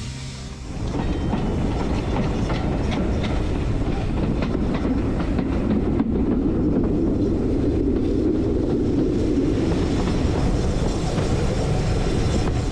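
Heritage passenger train running along the line, heard from aboard: a steady rumble of wheels on rail with scattered clicks, rising in level about a second in.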